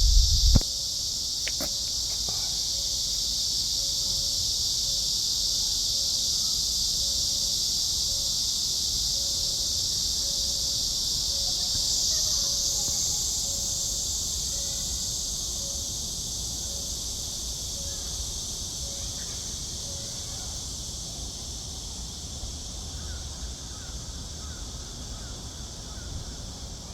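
Cicadas singing: a steady, high-pitched continuous buzz that slowly fades over the second half.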